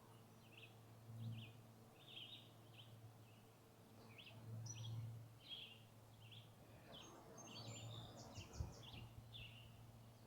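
Faint ambience with a small bird giving a string of short, high chirps, about one or two a second. Soft rustling and a single click come near the end.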